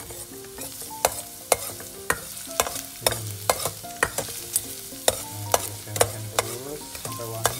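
Metal spatula clinking and scraping against a stainless steel pot about twice a second as minced garlic is stir-fried in oil, with the oil sizzling steadily underneath.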